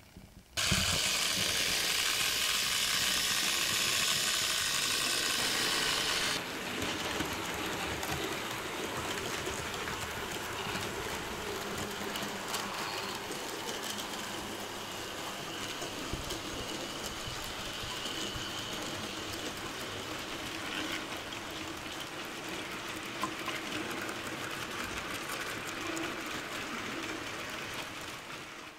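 Model train running on the track, a steady mechanical running noise. It is loudest for the first six seconds, then changes abruptly to a quieter run with faint clicks.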